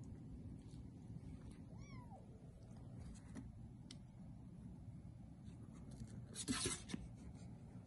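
A three-week-old Bengal kitten gives one short, high mew about two seconds in. Near the end comes a louder scratchy rustle as a kitten claws at a cardboard box wall.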